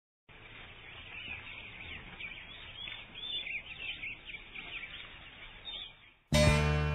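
Small birds chirping and twittering, many short quick calls. About six seconds in, music comes in suddenly with a loud ringing chord that slowly fades.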